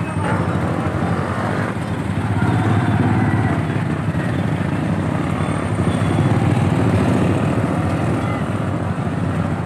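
Motorcycle engine running as it rides slowly through dense traffic, with the engines and street noise of tricycles close around; a steady low rumble.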